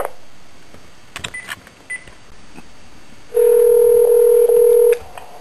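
Telephone line sounds as a hung-up call is redialed: a few clicks and two short beeps, then a steady ringback tone for about a second and a half that cuts off when the call is answered.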